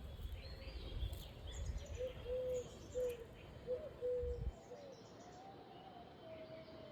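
Birds calling: a run of short, arched low notes and higher chirps, then a longer, slightly falling note. A low rumble sits under the calls and stops about four and a half seconds in.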